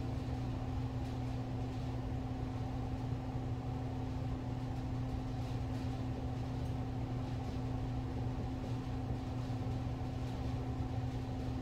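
Steady low machine hum with a constant pitched drone, the sound of a running appliance such as a fan.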